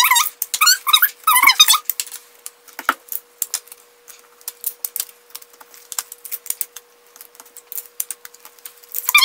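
Quick, irregular clicking and crackling of paper and sticky tape being handled and pressed down by hand as a paper frame's folded edges are taped. High, wavering squeaks sound in the first two seconds and again near the end.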